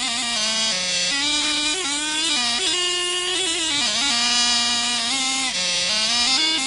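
Dance music led by a buzzy, reedy melody line of held notes that step and slide up and down between pitches.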